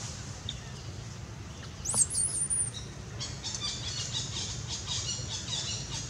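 A baby long-tailed macaque gives a high-pitched squeal about two seconds in, sweeping up and wavering, the cry of an infant calling for its mother. A quick run of short, high chirps follows, over a steady low rumble.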